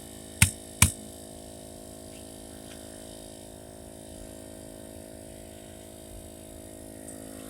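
Portable electric tire inflator running with a steady hum while it pumps up a tire. Two sharp clicks, about half a second apart, come near the start.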